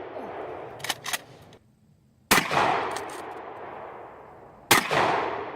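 Two gunshots about two and a half seconds apart, each followed by a long echo rolling away. Two quick sharp clicks come about a second in, before the first of them.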